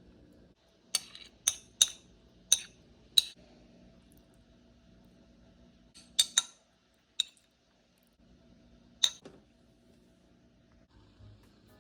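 Utensils clinking against dishes: a quick run of about five sharp, ringing clinks, then three or four more spaced a second or more apart, over a faint steady hum.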